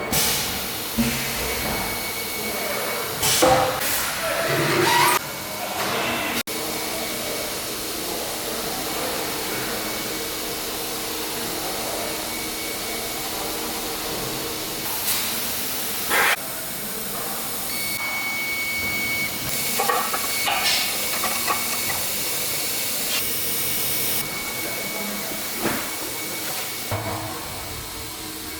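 CNC wood router running: a constant rushing noise under a steady high whine, with a few short, louder scraping knocks along the way.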